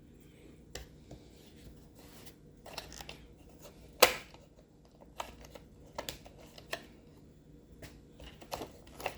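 Scattered clicks and knocks of a Roomba robot vacuum's plastic parts being handled, with one sharper knock about four seconds in and a run of lighter clicks in the second half.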